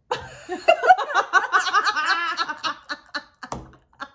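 Women laughing: a burst of rapid giggling that starts abruptly and trails off into a few short chuckles.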